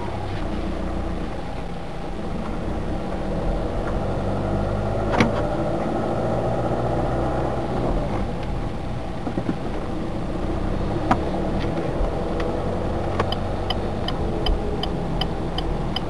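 Car engine and road noise heard from inside the cabin while driving, steady and low, with a few sharp knocks. Near the end a turn-signal indicator starts ticking at about two ticks a second as the car approaches a junction.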